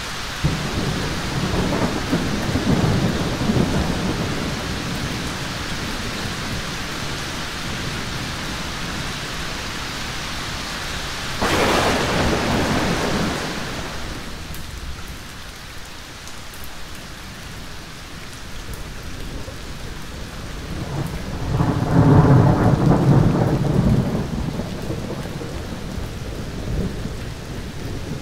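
Thunderstorm: steady rain with rolls of thunder. A low rumble comes a couple of seconds in, a sharper crack just before halfway, and the loudest, longest roll about three-quarters through.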